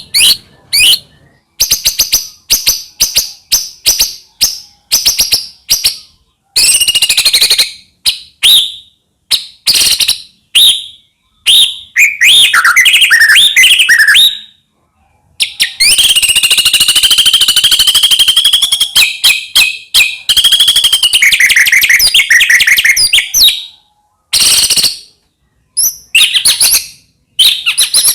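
White-rumped shama singing a loud, varied song of rapid clicking rattles, whistled notes and trills, broken by short pauses.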